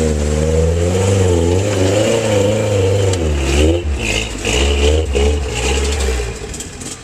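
Off-road 4x4 truck engine revving hard under load, its pitch rising and falling again and again as the throttle is worked. The revs ease briefly about halfway through, pick up again, and die away near the end.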